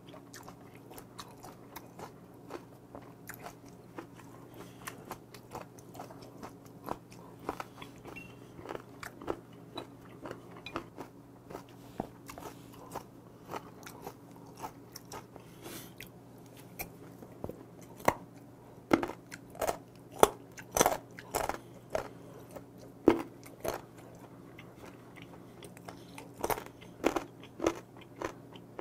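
Close-miked chewing and biting of a person eating, with wet mouth clicks and crunches that grow louder and more frequent in the second half, over a steady low hum.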